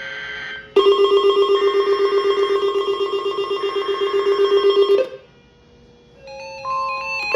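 Weather radio receiver sounding its alert: a loud electronic tone beeping rapidly for about four seconds over faint screechy bursts of digital alert data. It marks a new alert coming in. Near the end, a run of stepped electronic tones starts.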